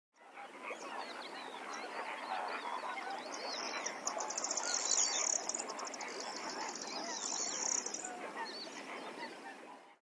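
A large flock of birds calling all at once, a dense chorus of many overlapping calls that fades in at the start and out near the end. A high, fast trill sounds over it from about three and a half to eight seconds in.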